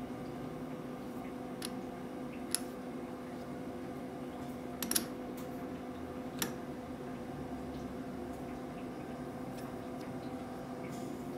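Steady workshop hum with a handful of sharp metallic clicks, the loudest about halfway through, as a part held in a lathe's four-jaw chuck is turned by hand and its jaws adjusted against a dial indicator.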